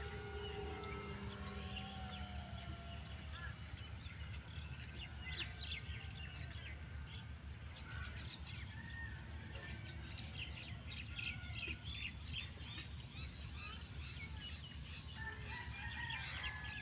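Many small birds chirping in quick, high calls over a steady low background noise of open countryside, with one sharp click about eleven seconds in.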